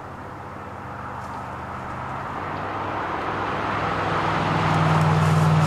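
A motor vehicle passing by, its engine hum and tyre noise growing steadily louder and peaking near the end.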